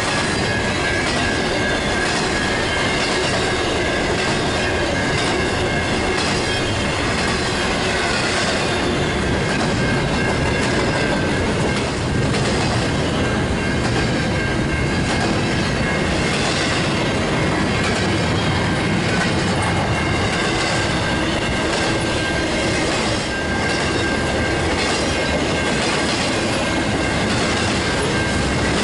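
Double-stack intermodal freight train's well cars rolling steadily past on the rails at close range, with a thin, high wheel squeal over the running noise.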